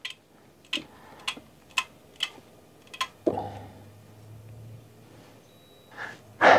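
Bicycle being hung on a Park Tool bike scale: a run of light, sharp clicks about every half second, then a soft thud a little after three seconds in as the bike settles.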